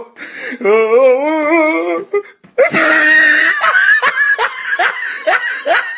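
Loud laughter: a wavering, pitched laugh for about two seconds, then after a brief break a shrill burst followed by a quick run of short rising laugh pulses.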